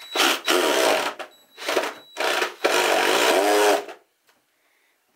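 A power tool running in three bursts, the last about two seconds long, then stopping.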